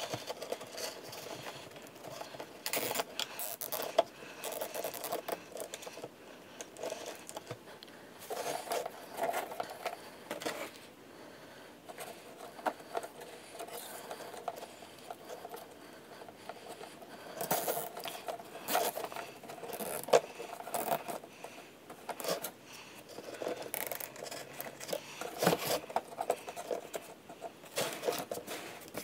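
A short length of metal chain jangling and clinking against a hacksaw frame while plastic zip ties are threaded and ratcheted tight, with scraping and handling noises in irregular spurts.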